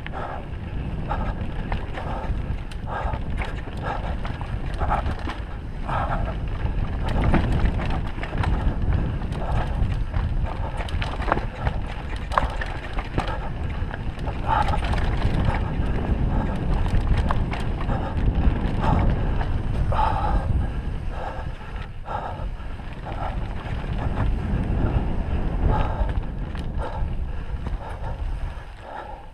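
Mountain bike rolling fast down a dirt singletrack: wind buffeting the camera microphone and tyre rumble over the ground, with frequent brief rattles from the bike.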